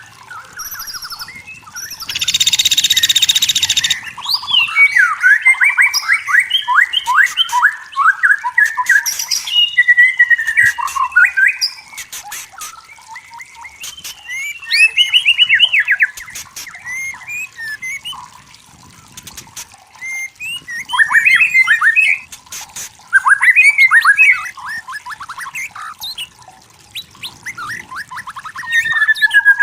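White-rumped shama singing in loud separate phrases of quick, rapidly rising and falling whistled notes, with short pauses between them. About two seconds in there is a harsh, rasping burst.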